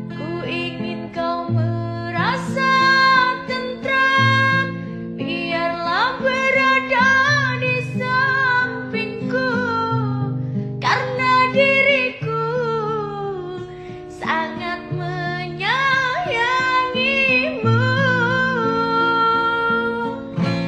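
A woman singing a slow Indonesian love ballad over plucked acoustic guitar, the voice sliding and ornamenting between notes in long phrases.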